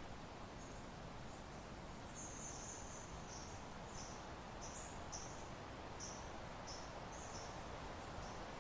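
Soft, steady wind noise over open country. From about two seconds in, a string of high, thin chirps comes roughly twice a second.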